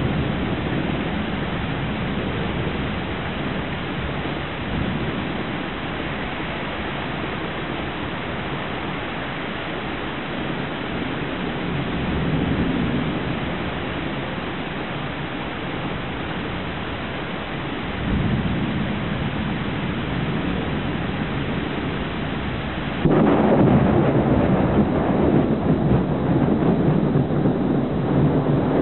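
Heavy rain falling steadily through a thunderstorm, with thunder rumbling in low swells. Late on, a sudden sharp clap of thunder breaks into loud, rolling rumbles.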